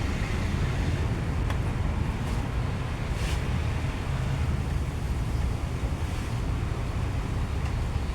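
Isuzu Mu-X diesel engine running steadily, a low rumble, with a few faint clicks.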